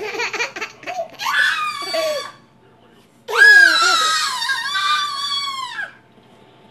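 Baby laughing in short choppy bursts, then a loud, long, high-pitched squeal of delight that falls in pitch at the end.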